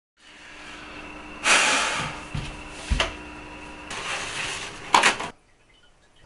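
Toilet paper being pulled off the roll in a plastic wall-mounted holder: a rustling, rattling run of pulls with a few knocks, ending with a sharp snap about five seconds in as the sheet is torn off against the holder's lid.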